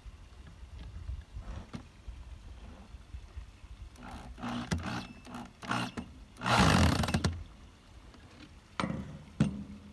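Craftsman 7.0 amp corded drill running in short bursts, driving wood screws through a corner brace into the drawer. The longest and loudest run comes about two thirds of the way in, and two sharp knocks follow near the end.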